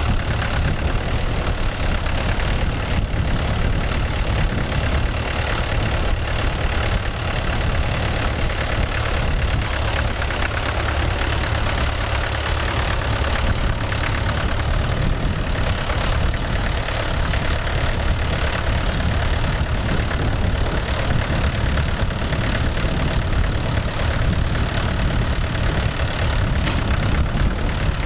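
Vintage tractor engine running steadily, with no change in pace.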